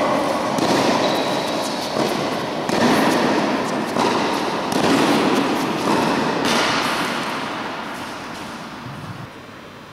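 Tennis rally on an indoor court: sharp pops of the ball off the rackets and court, ringing with a long echo in the hall. The hits come in pairs about every two seconds, stop about six and a half seconds in, and the echo fades away.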